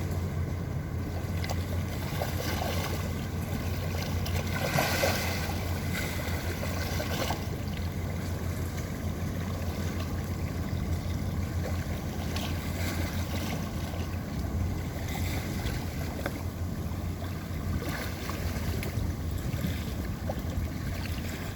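Low, steady engine drone of a passing boat, mixed with wind on the microphone and water noise; a brief louder swish about five seconds in.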